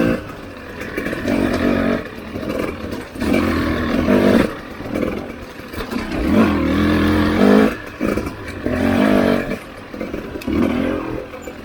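Husqvarna TE300i two-stroke dirt bike engine revving in about six bursts of throttle, rising in pitch within some bursts, with the throttle chopped in between.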